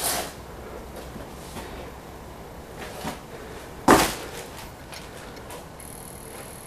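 Quiet room tone broken by a few sharp knocks, the loudest about four seconds in. A faint, steady high-pitched tone comes in near the end.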